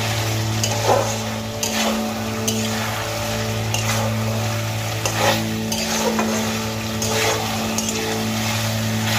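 A metal spatula scrapes and knocks against a metal kadai, about once a second, as fried pointed gourd and potato pieces are stirred through spice paste, sautéed in oil. The oil sizzles steadily underneath.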